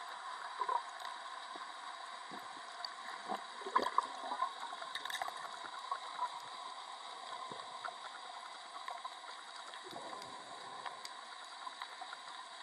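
Underwater ambience heard through a camera housing: a steady hiss with scattered faint clicks and crackles, and now and then the gurgle of bubbles from the diver.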